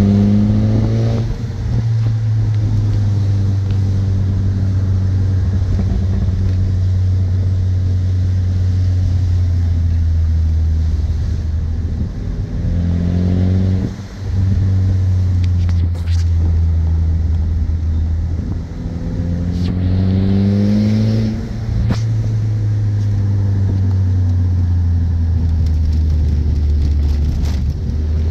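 Car engine and road noise heard from inside the cabin while driving: a steady low drone that rises in pitch and drops back a few times, near the start, about halfway through and about three-quarters through, as the car pulls away up through the gears.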